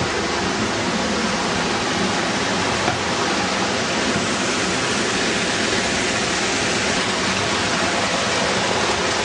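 Water pouring down a rocky waterfall, a steady, loud rushing.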